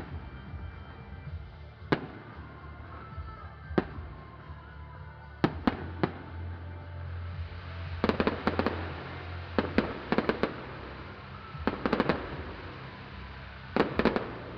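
Aerial fireworks going off: single sharp bangs every second or two, then from about halfway clusters of rapid crackling reports, over music with a steady bass.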